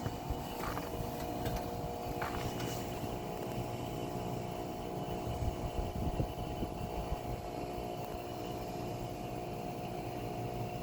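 3-ton SureComfort SP14 heat pump outdoor unit running through a defrost cycle with a steady hum. Two brief hisses come about one and two seconds in, and a few low rumbles near the middle.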